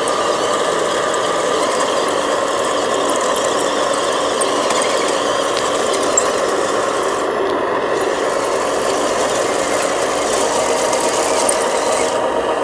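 Steady whine of a small electric motor and gearbox, the running noise of a remote-control dump truck at work.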